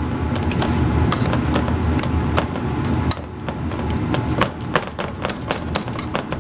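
Wire potato masher mashing potatoes in a stainless steel pot: irregular clicks and taps of the metal masher against the pot as the potatoes are worked. A low rumble runs under the first three seconds and then drops away.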